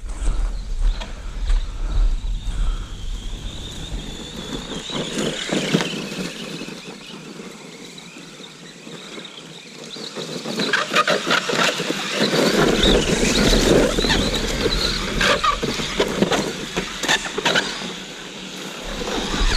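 Arrma Granite BLX 4x4 RC truck running: its brushless motor whines, the pitch gliding with the throttle, and its tyres and chassis scuff and rattle over the ground. The scuffing and clattering are busiest and loudest in the second half.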